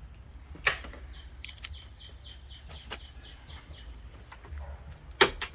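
Two sharp knocks, the louder one near the end, from hand work on a stuck hood latch. In the background a bird chirps a quick run of short, high notes, and a low hum runs underneath.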